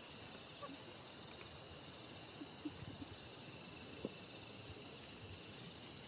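Faint, steady chirring of night insects, with a fainter high chirp repeating about twice a second and a few soft clicks.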